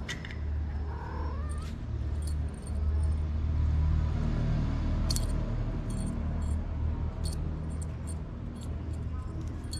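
A kitten meows once, briefly, about a second in, over a steady low rumble that grows louder around the middle, with scattered light ticks and clicks throughout.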